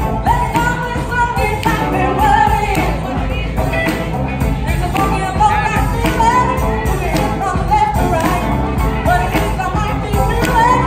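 Live band playing, with women singing lead and backing vocals over drums, guitar and keyboards.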